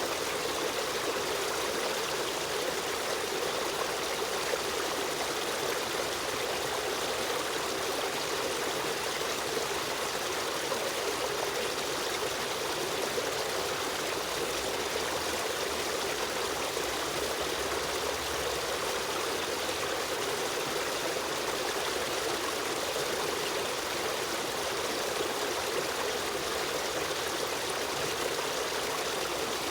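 Stream of running water flowing steadily over rocks, a continuous rushing and trickling.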